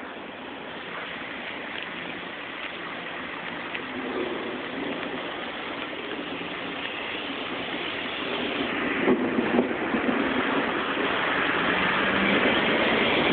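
Heavy rain and traffic on a flooded street: a steady hiss of rain and water with vehicle engines and tyres through standing water, growing louder in the second half.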